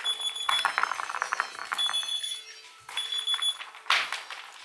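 Alarm clocks going off: a high electronic beep tone sounding in bursts of about half a second, mixed with fast bell-like ringing.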